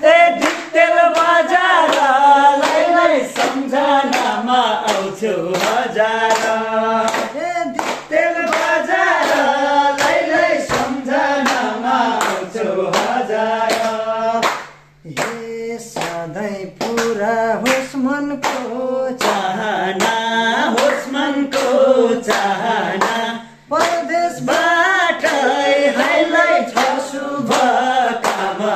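A group of men singing a Nepali song together, with hand clapping keeping the beat; the singing breaks off briefly twice.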